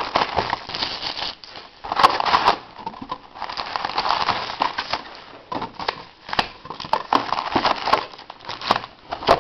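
Plastic shrink-wrap crinkling and crackling in irregular bursts as it is torn off a sealed box of trading cards, followed by the cardboard box being opened and card packs handled.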